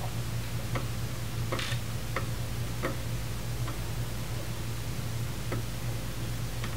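Scattered small clicks, roughly one every half second to second with one louder click about one and a half seconds in, as a hand turns the zero control knob on a portable gas analyzer, over a steady low hum.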